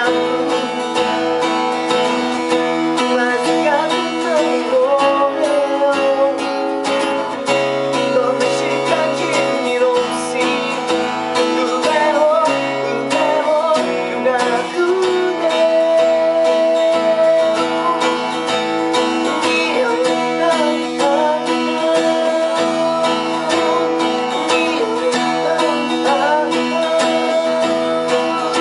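Music played on acoustic guitar, strummed and plucked, with a wavering melody line over held notes.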